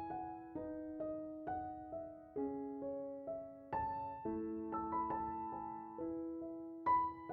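Background music: a gentle solo piano melody of slow, single struck notes, each ringing and fading before the next.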